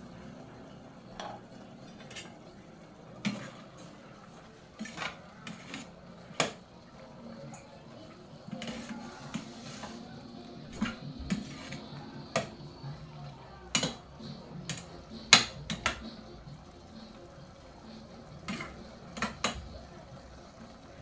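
Long metal spoon stirring pork in a stainless steel saucepan, clinking and scraping against the pot's rim and sides in irregular knocks; the loudest clank comes about fifteen seconds in.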